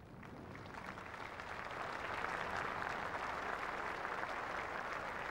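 Large crowd applauding, swelling over the first couple of seconds and then holding steady.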